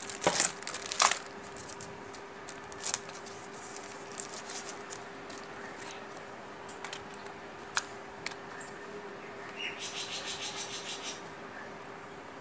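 Plastic handling sounds of a budget feature phone being assembled: scattered small clicks and rubbing as the battery and snap-on back cover are fitted, with a short rapid run of clicks about ten seconds in. A crinkle of plastic bag comes at the start, over a faint steady hum.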